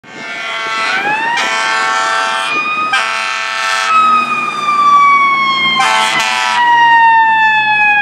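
Fire truck responding with its siren and air horns: the siren rises in pitch about a second in, then falls slowly as it winds down, while the air horns blast three times over it. A low truck engine rumble sits beneath from about halfway through.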